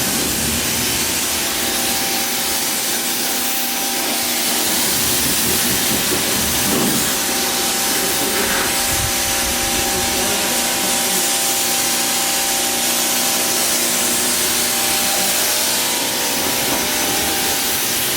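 Pressure washer spraying water onto car parts: a steady hiss with its motor humming underneath.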